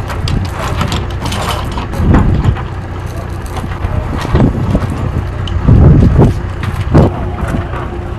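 Steel tie-down chains rattling and clanking as they are handled and hooked onto a helicopter's wheel, with several louder clanks, over a steady low rumble.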